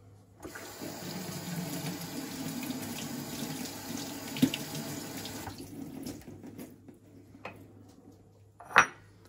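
Kitchen tap running into a sink while fresh grape vine leaves are rinsed, starting about half a second in and shutting off after about five seconds. A short, sharp knock near the end.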